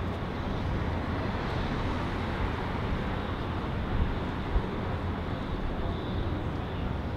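Steady noise of city street traffic with a deep rumble underneath, and a brief thump about four and a half seconds in.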